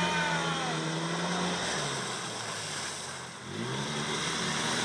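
Side-by-side UTV's engine running as it ploughs through deep muddy water. It fades and drops in pitch about three seconds in, then revs back up.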